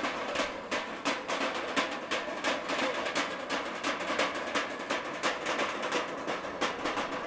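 Square metal tins slung from the players' necks, beaten with wooden sticks in a fast, steady rhythm of sharp, clanging strikes, several a second, from a few players at once.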